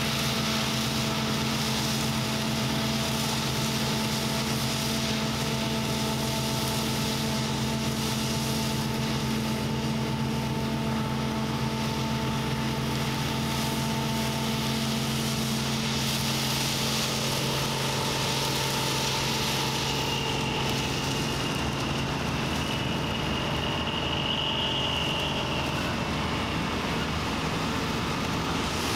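Claas Dominator 98 SL combine harvester running steadily at work in wheat, a continuous engine drone. Its lower engine note fades about two-thirds of the way through, and a faint high whine comes in near the end.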